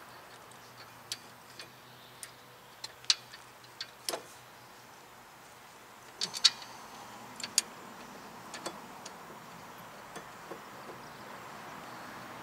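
Scattered, irregular sharp metal clicks and taps as a brake caliper bracket is handled against the hub and its mounting bolt is started by hand, with the loudest knocks about three and six and a half seconds in.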